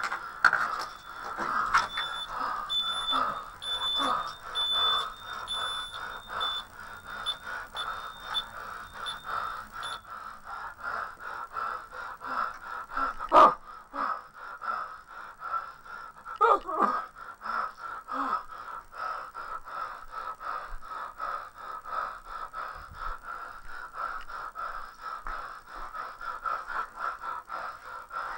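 Home security alarm keypad beeping at a steady pace, about once a second, the entry-delay warning, until it stops about ten seconds in as the code is keyed in. A single sharp knock comes about halfway through.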